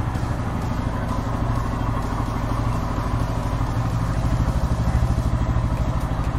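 Bajaj Pulsar N160's single-cylinder engine idling steadily, its firing pulses even throughout.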